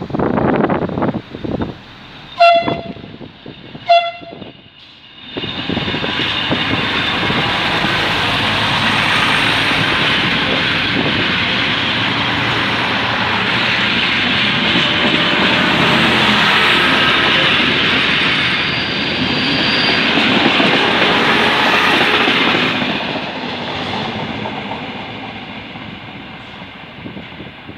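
Two short horn blasts from a five-car ALn 668.3100 diesel railcar set, three railcars hauling a pair that includes a broken-down unit. Its diesel engines then work hard as it pulls away, loudest mid-way and fading near the end. Wind gusts buffet the microphone at the start.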